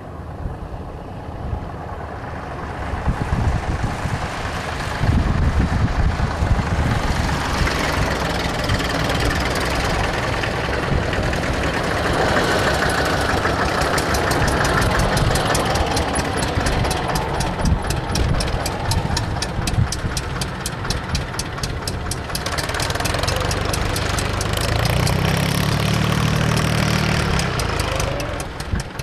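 Engines of old farm tractors running as they drive past one after another. The sound grows louder over the first few seconds and stays loud, with a deeper rumble near the end as the last tractor goes by.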